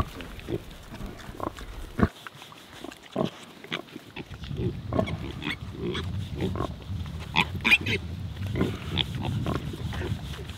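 Black sow and her piglets grunting as she lies down to nurse them: short separate grunts and snuffles at first, then from about halfway a steadier, denser run of low grunting.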